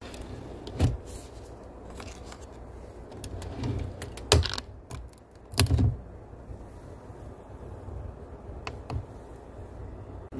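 Clicks and knocks of a Keurig single-serve coffee maker being set up to brew, with sharper knocks about one, four and five and a half seconds in. Two lighter clicks near the end come from the brew-size buttons being pressed.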